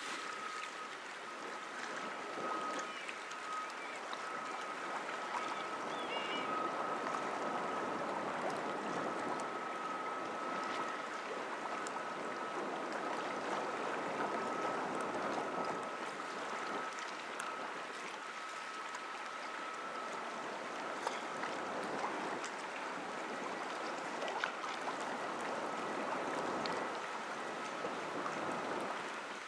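Choppy river water sloshing and lapping, with an unbroken thin high tone running through it.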